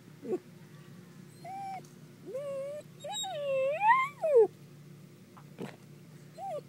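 A dachshund giving a series of drawn-out, whining yelps rather than short barks: about five calls, the longest and loudest about three to four and a half seconds in, rising and falling in pitch.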